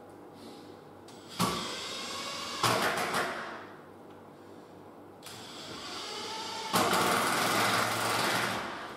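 Cordless impact driver driving Phillips-head screws through a hinge leaf into a timber door edge: three bursts of rapid rattling hammering with short pauses between, the last the longest.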